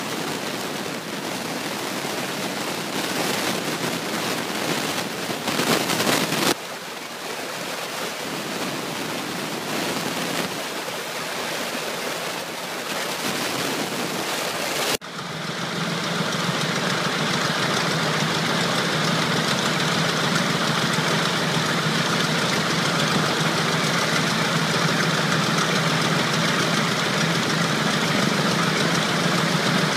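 A Zero fighter's Nakajima Sakae fourteen-cylinder air-cooled radial engine running steadily, most clearly from about halfway on. Before that, a loud, even rushing noise fills the first half and breaks off abruptly.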